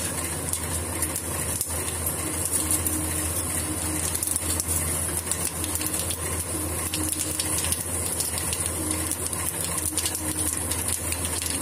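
Panch phoron seeds sizzling in hot oil in a kadhai, a steady hiss with many small crackles and pops. A low steady hum runs underneath.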